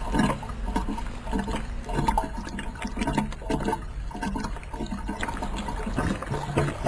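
Water glugging out of a large upturned water-cooler jug as a man drinks straight from its neck, in a steady run of glugs, two or three a second.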